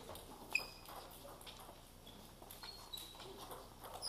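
Table tennis balls clicking on tables and bats, scattered light clicks with one sharper ringing click about half a second in, and a few short high squeaks from shoe soles on the hall floor.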